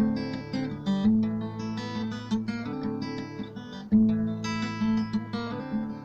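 Acoustic guitar strumming chords with no singing. A hard strum comes about four seconds in, then the chords ring and fade away near the end.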